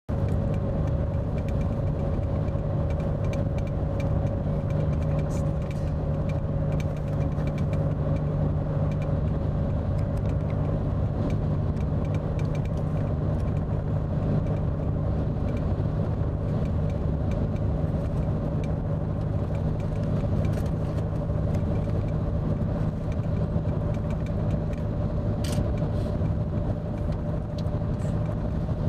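Car engine running steadily, a constant low hum with a steady tone above it.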